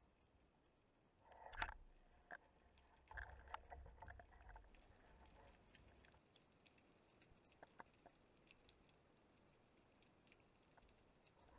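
Faint underwater ambience of scattered clicks and crackles. There is a brief louder rustle about one and a half seconds in, and a cluster of soft knocks with a low rumble a few seconds later.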